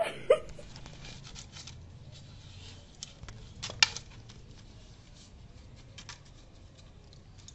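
Straw broom bristles rustling and scraping over a doormat and tile floor as a dachshund tugs and shakes the broom, with many small scratchy clicks. There are two sharp knocks, one just after the start and one about four seconds in.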